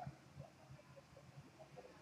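Near silence: faint room tone with a few faint, indistinct short sounds.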